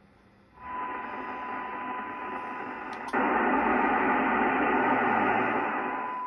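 Receiver audio from a Kenwood TS-990S HF transceiver's speaker: a steady hiss of band noise with a steady tone running through it, coming in about half a second in. After a click about three seconds in it gets louder, then eases back a little near the end.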